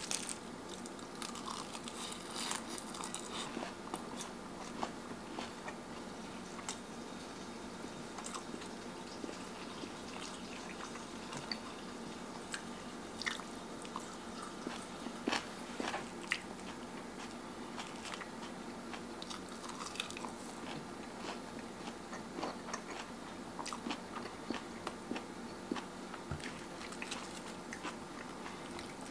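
A person biting and chewing crunchy food, with scattered crunches over a steady low hum.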